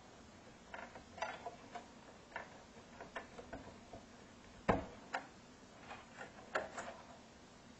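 Scattered, irregular light clicks and taps as hands pull and untangle a bundle of wires and their connectors on a tube amp's circuit board, with one louder knock a little past halfway.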